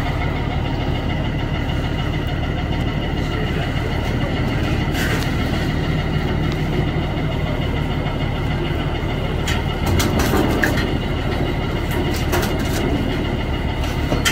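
An engine running steadily, a low drone with a faint steady whine over it. A few short knocks come about ten seconds in.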